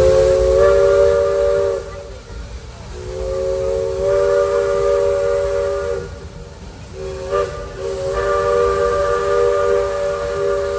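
Narrow-gauge steam locomotive's chime whistle blowing three long blasts, each sounding several steady tones together as a chord, with steam hiss behind.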